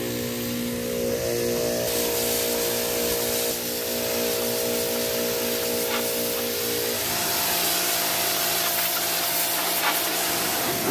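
Pressure washer running, its wand spraying a high-pressure water jet against a boat hull: a steady spray hiss over a humming drone that shifts pitch a few times.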